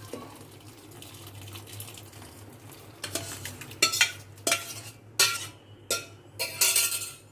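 Metal spoon and pan scraping and clinking: a low quiet stretch, then from about three seconds in a series of sharp, loud strokes as the freshly made chhena is scraped out of the pan into a cloth for draining.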